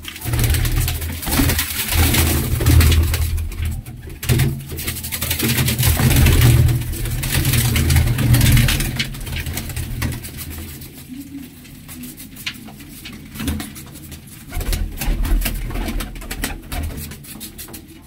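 Domestic pigeons cooing in a small loft, louder for the first half and then quieter.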